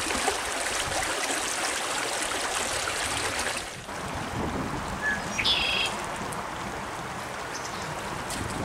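Small creek rushing steadily over rocks, a little quieter after a brief break about four seconds in. A short high bird call sounds once just past the middle.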